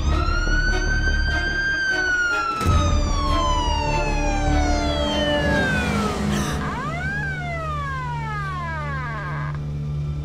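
Dramatic sound-design score: a long siren-like tone that slides slowly down in pitch, cut by a deep boom a few seconds in, then a shorter tone that rises and falls, all over a low steady drone.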